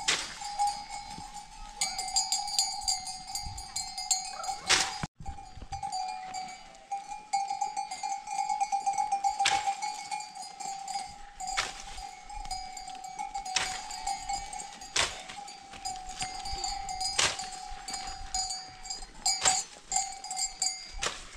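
Bells on a grazing flock of sheep and goats ringing steadily, with sharp knocks every second or two.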